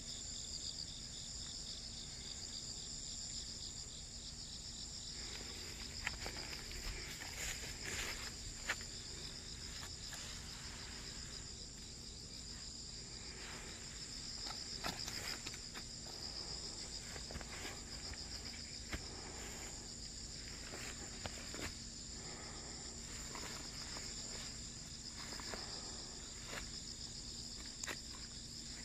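Steady high chorus of insects in summer grass: a continuous pulsing trill. Occasional light clicks and rustles sound over it.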